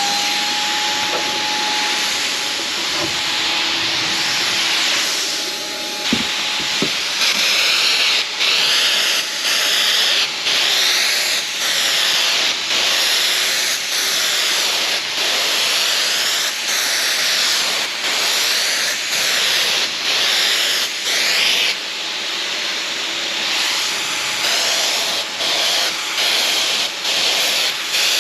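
Wagner Flexio electric paint sprayer running: its motor has just spun up and gives a steady whine under a loud hiss of air and spray. From about seven seconds in, the hiss drops out briefly and comes back, over and over.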